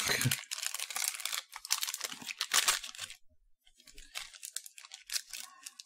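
Plastic snack wrapper of an individually packed custard financier cake being torn open and crinkled. Rough tearing and rustling runs for about three seconds, then softer, scattered crinkling.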